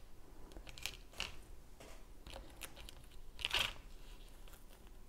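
A few brief crinkles and clicks of a clear plastic seed tray and a plant label being handled, the loudest about three and a half seconds in.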